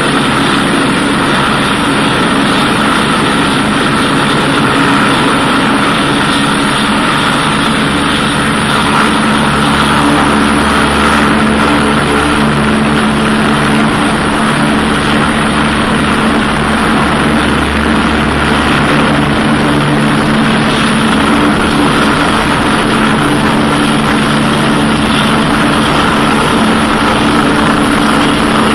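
Airbus EC145 twin-turboshaft helicopter running steadily, with a turbine whine over the rotor and engine noise.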